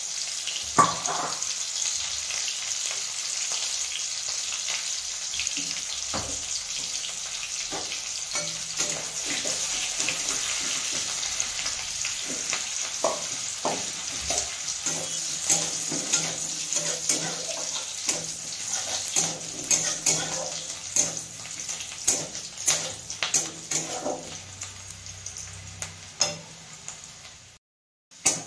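Oil sizzling steadily in a steel kadai on a gas stove, with one sharp clank about a second in. From about halfway, a metal spatula scrapes and knocks against the pan several times a second as the food is stirred.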